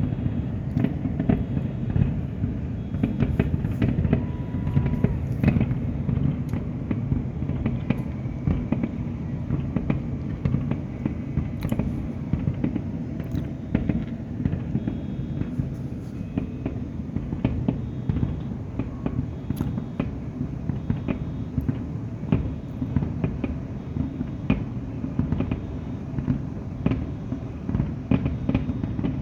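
Aerial fireworks display going off in a dense, continuous barrage: low booms run together, with many sharp cracks throughout.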